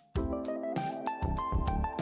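Background music: a keyboard melody over a steady beat, resuming after a brief break at the very start.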